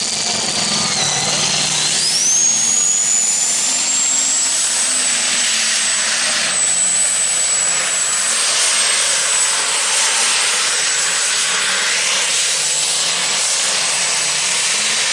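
Super stock diesel pulling tractor running flat out under load as it pulls the sled, with a high turbocharger whine that climbs sharply about two seconds in and then holds steady.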